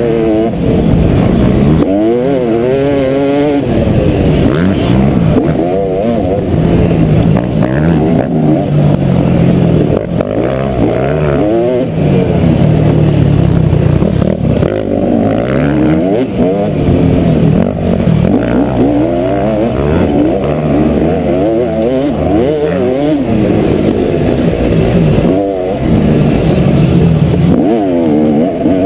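Motocross bike engine revving hard and easing off over and over as the rider accelerates and shifts through the gears, pitch rising and falling every few seconds. Heard from a helmet camera, so it sounds muffled.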